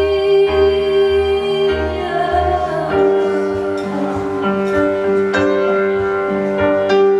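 A live band plays an instrumental passage of a slow song: sustained keyboard chords over a pulsing bass line, which changes pattern about three seconds in.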